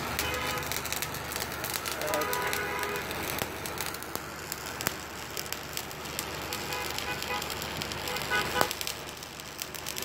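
Construction-site background noise: a steady hiss dense with small crackles and clicks, with faint distant voices about two seconds in and again near the end.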